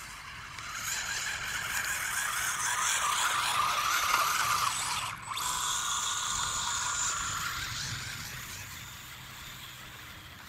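High-pitched whir of a radio-controlled model's electric motor and drivetrain, building over the first few seconds, breaking off for a moment about five seconds in, then running steadier with a thin whine before fading toward the end.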